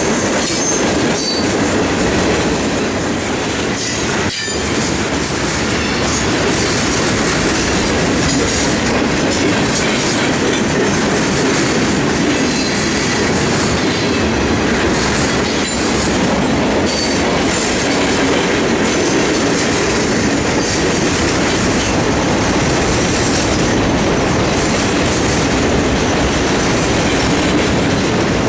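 Freight train cars rolling past: a steady, loud noise of steel wheels running on the rails, even throughout.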